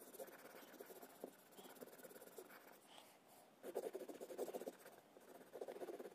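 Faint scratching of a coloured pencil shading on paper in quick back-and-forth strokes. The strokes are quieter at first, then grow louder in a burst of about a second starting a little before the middle, and again near the end.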